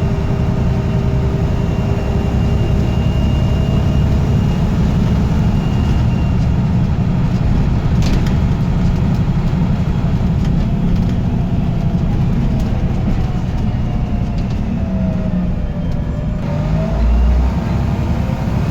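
Diesel bus engine running under way, with a thin high turbocharger whistle over the low rumble during the first six seconds or so. Near the end a lower whine dips and rises with the engine.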